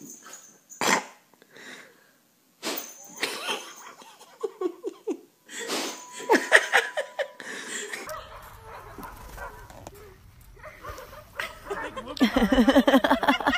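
A few short knocks, then a person laughing in bursts, loudest near the end.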